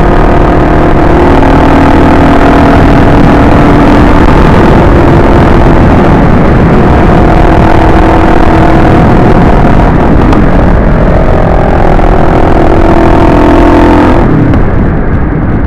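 Kawasaki KLX250S supermoto's single-cylinder engine running at a steady cruise under heavy wind rush on a helmet-mounted camera, the engine note shifting pitch slightly now and then. The wind rush eases near the end.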